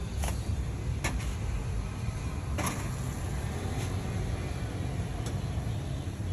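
Steady low rumble of street traffic, with a few sharp clicks of metal tongs against the grill tray, the loudest nearly three seconds in.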